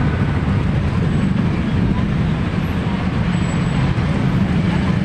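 Busy city street ambience: a steady rumble of road traffic with the voices of people walking past.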